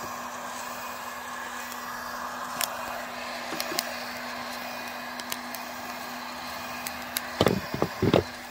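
Home-built hot-air coffee roaster running with a steady blowing rush and a low hum, while a few scattered sharp pops come from the beans as first crack tails off. Near the end come several louder knocks of handling.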